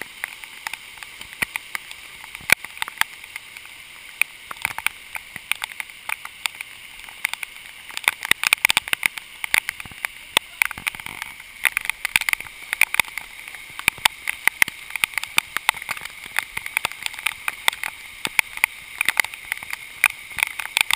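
Heavy rain striking the camera as a dense run of sharp, irregular taps, over a steady hiss of downpour and running floodwater. The taps thicken about a third of the way in.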